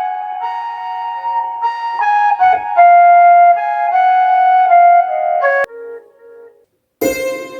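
Korg Pa300 arranger keyboard playing a slow melody of held notes on one of its Indian tones. The melody cuts off with a click about five and a half seconds in, and a few quieter low notes follow. After a brief silence, a different tone with a quick rhythmic pulse starts near the end.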